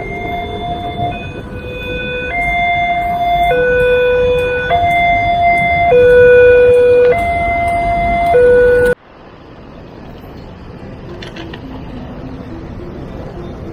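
Railway level-crossing warning alarm sounding its two-tone electronic signal, alternating between a higher and a lower note about every second, the warning that a train is passing and the crossing is closed. It breaks off suddenly about nine seconds in, leaving quieter street traffic noise.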